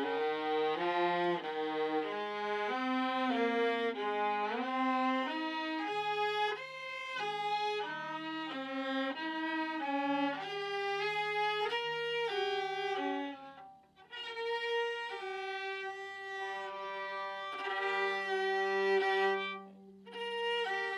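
Two violas bowing a melodic passage together, notes changing about twice a second. They break off briefly about two-thirds of the way through, then carry on.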